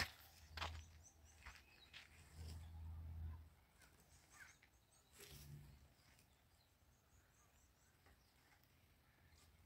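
Near silence, with faint outdoor ambience. A few soft knocks come in the first two seconds, then faint high bird chirps.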